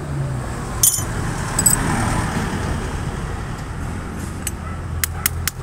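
Road traffic with a steady low hum and a vehicle passing about two seconds in. A few sharp metallic clicks of hand tools working on a motorcycle chain, with a quick run of them near the end.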